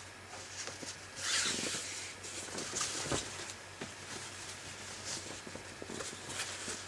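Soft rustling and small clicks of a cloth bandana and its packaging being handled and unfolded, with a brief louder rustle about a second in.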